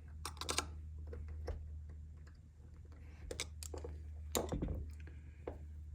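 Scattered clicks and light taps of a multitool's metal parts being worked by hand as a bar is forced back through its frame past a paracord lanyard, over a steady low hum.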